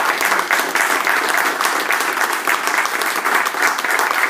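Small audience applauding, many hands clapping steadily.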